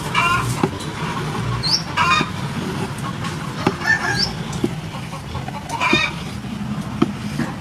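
Chickens clucking in short calls about every two seconds, with a couple of quick high rising chirps, over soft knocks of a kitchen knife on a wooden chopping board as aloe vera flesh is cut.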